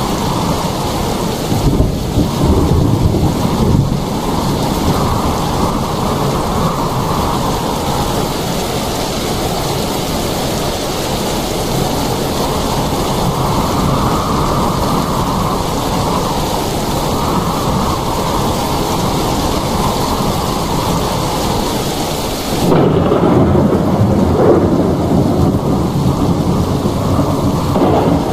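Steady heavy rain with deep rumbles of thunder. About three-quarters of the way through, the sound changes abruptly to a louder, deeper rumble with less hiss.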